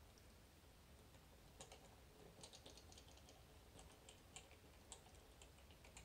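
Faint, irregular small clicks and rattles from the spring-loaded magnetic tumblers inside a Miwa EC magnetic lock as a magnet pick is worked over them under light tension, carried through an amplifier over a low steady hum. The clicks thicken after about a second and a half.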